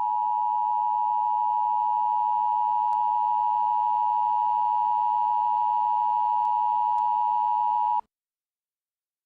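Emergency Alert System attention tone: one loud, steady electronic tone just under 1 kHz, held for about eight seconds and then cut off suddenly.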